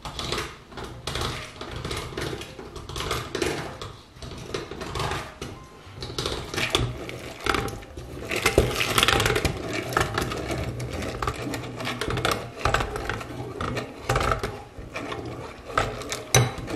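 Hand-cranked rotary egg beater whirring and rattling as its steel beaters whisk rice flour batter in a ceramic bowl, going in uneven spurts as the cranking speeds up and slows.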